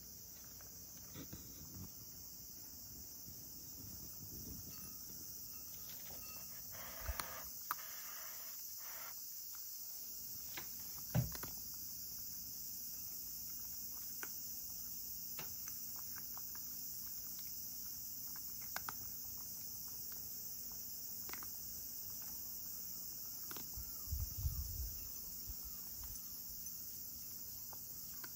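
Cat eating dry kibble from a ceramic bowl: scattered crisp crunches and clicks, with a few low knocks against the bowl, over a steady high hiss.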